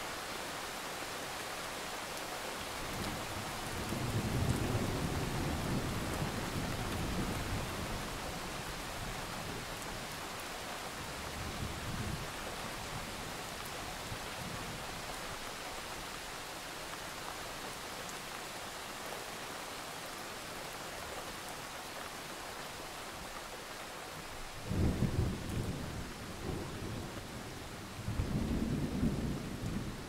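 Thunderstorm: steady heavy rain hissing, with thunder rumbling. A long roll a few seconds in, a short one about halfway through, and two louder rolls that start suddenly near the end.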